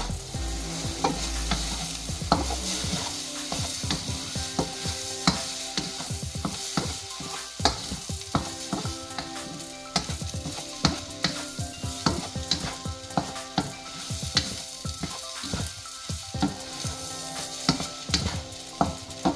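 Fried rice sizzling in a hot pan while it is stirred and tossed, with frequent sharp knocks and scrapes of the utensil against the pan.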